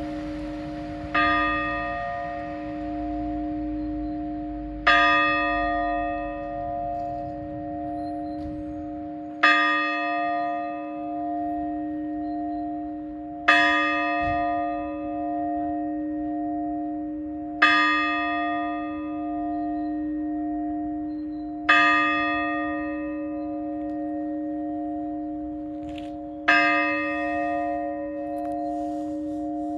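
A large church bell tolled slowly with single strokes, seven in all, about every four seconds. Each stroke rings out and fades while the bell's deep hum carries on between strokes.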